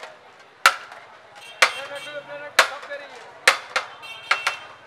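Sharp clacks of a serving utensil and plates knocking against a large aluminium pot as biryani is dished out, about one a second and each ringing briefly.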